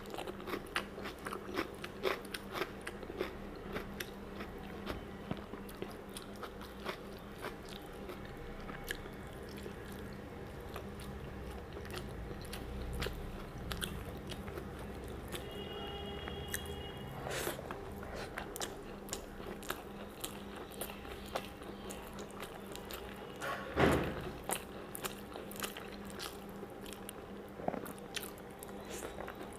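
Close-miked chewing of rice mixed with curry, with many short wet mouth clicks and lip smacks, and fingers mixing rice on a steel plate between mouthfuls. A steady low hum runs underneath, and one louder mouth sound comes about three quarters of the way through.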